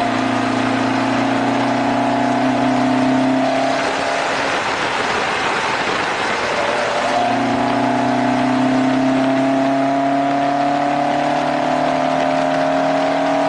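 Toyota 2TG twin-cam four-cylinder in a 1973 Corolla Levin accelerating on the road, its note climbing steadily through a gear. Between about four and seven seconds in the note drops away, then comes back lower and climbs again, as after an upshift, with wind rushing over the hood-mounted microphone.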